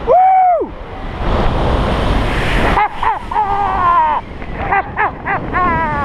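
Air rushing over the microphone in flight under a paraglider, a steady wind noise, with short wordless voice calls over it: one at the start and several more in quick succession in the second half.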